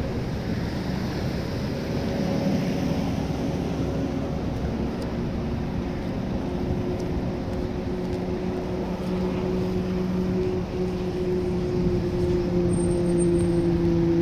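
An engine running with a steady hum over a constant rush of background noise; the hum grows a little louder and slightly lower in pitch toward the end.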